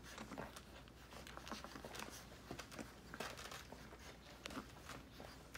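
Siberian husky puppies nursing: faint, irregular small clicks and rustles of suckling and squirming against the mother's fur.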